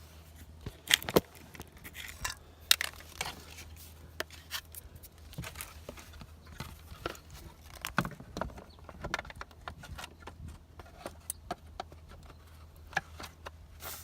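Irregular clicks and knocks of hard plastic being handled: the window switch assembly being fitted and slid back into the car door's armrest trim.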